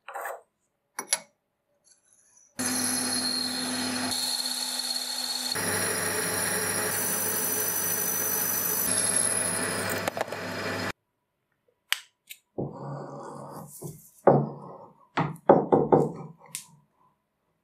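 Metal lathe running while a twist drill bores into a spinning metal rod: a steady machine sound with a high whine, shifting abruptly several times and cutting off about eleven seconds in. Then a run of short knocks and clicks as an arbor press pushes a brass pin into a wooden handle.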